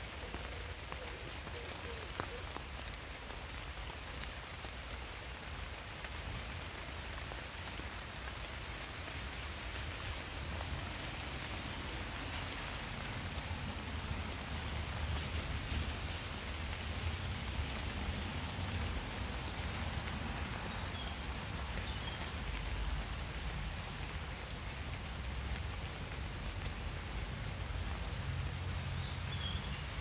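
Steady rain falling on leaves and foliage, a dense, even hiss of drops. A low rumble underneath grows stronger after about ten seconds.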